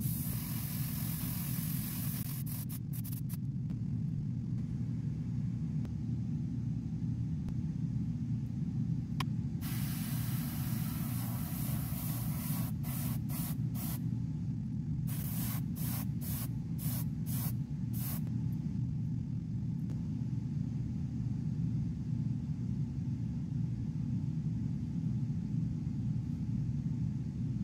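A steady low hum with several bursts of hissing: one at the start, a longer one a little before the middle, then a quick run of short hisses.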